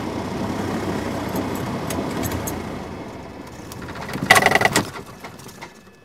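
Cessna 172 piston engine idling and then shut down: it runs steadily, dies away about three seconds in, and gives one short loud burst just after four seconds as the propeller runs down to a stop.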